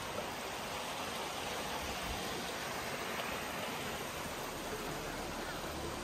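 Mountain stream flowing over rocks, a steady rushing hiss of water.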